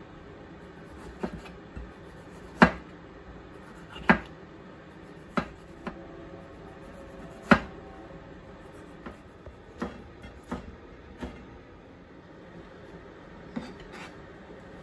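Kitchen knife cutting a tomato on a plastic cutting board: separate knocks of the blade hitting the board, irregular and about a second apart, three of them much sharper than the rest.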